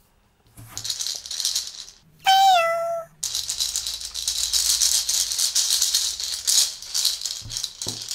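Hard round candies rattling inside a small clear plastic gumball-machine candy dispenser being shaken vigorously, in two spells with the second lasting about five seconds. Between them, about two seconds in, comes one short high-pitched tone that dips slightly at its start.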